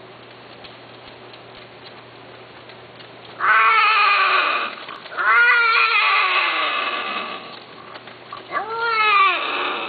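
Himalayan cat meowing three times after a few quiet seconds: long calls that rise and fall in pitch, the middle one the longest.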